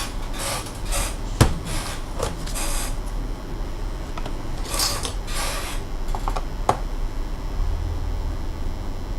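Hands handling and working on a laptop: bursts of scraping and rustling, with a sharp click about a second and a half in and another near seven seconds, over a steady low hum.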